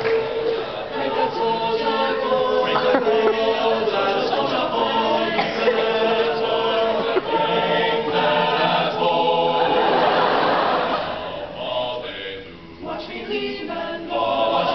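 A cappella vocal ensemble singing in several-part harmony, in a pastiche of 1590s Renaissance part-song style. The voices thin out and drop in level a couple of seconds before the end, then come back in together.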